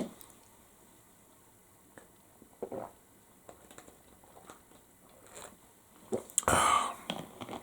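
A person taking a drink: faint sips and swallows, then a short, louder breathy sound about six and a half seconds in.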